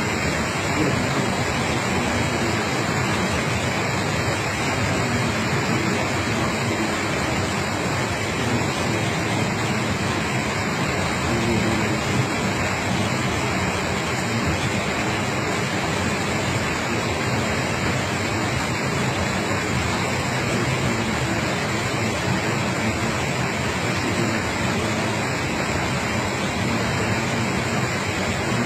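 Steady rushing of water flowing from a mountain spring over rock, an even hiss with no change in level.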